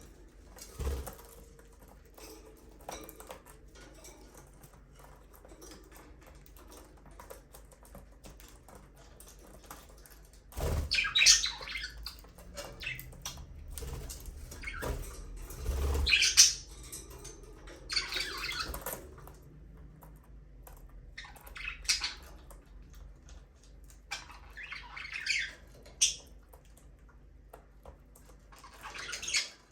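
Budgerigars chirping and squawking in short scratchy bursts a few seconds apart, after a quiet first ten seconds, with a few low thumps.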